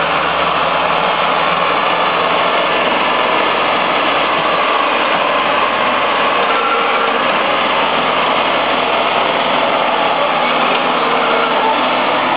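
Ford 5000 tractor engine running steadily under heavy load as it tows a trailer stacked with logs through mud.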